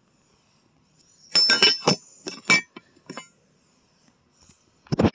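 Light metallic clinks and knocks: a quick cluster about a second in, a couple more around three seconds, and a heavier bump near the end.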